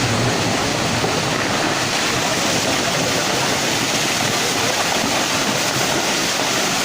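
Floodwater rushing in a torrent: a loud, steady roar of fast-flowing water.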